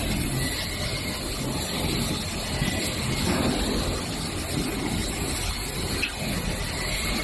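Steady low rumble and hum of production-line machinery and equipment, with no distinct clicks or impacts.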